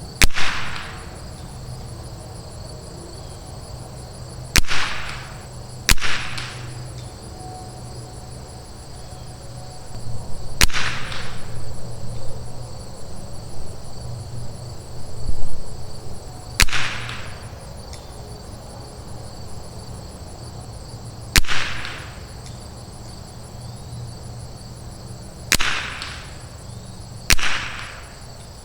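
A .22 LR Rim-X rifle with a Douglas barrel fires eight single shots at uneven intervals, each a sharp crack with a short ringing tail. Crickets trill steadily throughout.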